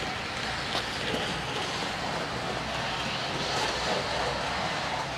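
Bachmann 00-scale motor luggage van running at full throttle on model railway track: a steady whirr of the motor and wheels on the rails with a few light clicks, a little louder around three to four seconds in.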